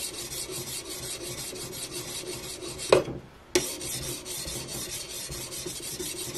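Oiled elbor (CBN) 50/40 sharpening stone stroked back and forth along the steel edge of a hatchet, a steady rasping scrape as the finer stone works out the scratches left by the coarser 80/63 stone. About three seconds in there is a sharp click, half a second of quiet, then a knock as the stone is set back on the blade and the strokes resume.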